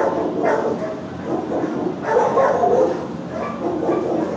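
Many dogs barking and yelping at once in shelter kennels, a continuous overlapping din with no pauses.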